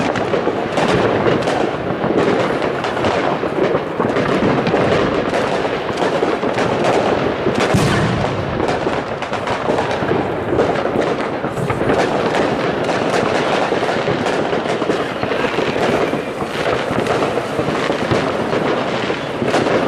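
Aerial fireworks bursting in a dense, unbroken barrage of overlapping bangs and crackle.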